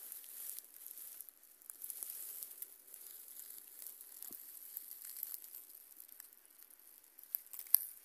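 Faint rustling and crackling of dry grass and leaves, with scattered small ticks and one sharper click near the end.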